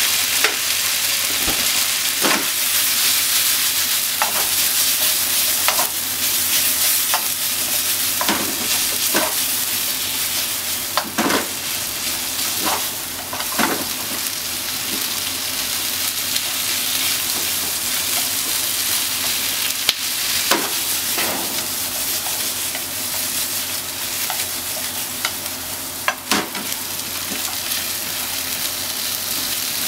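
Sliced pork and onions sizzling steadily in a frying pan while being stir-fried with wooden chopsticks, which clack and scrape against the pan a dozen or so times.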